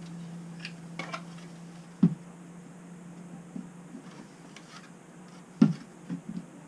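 3D-printed plastic parts and nylon dowel pins being handled and pushed together: light clicks about a second in, a sharp knock about two seconds in, and a louder knock with a few small taps near the end, over a steady low hum.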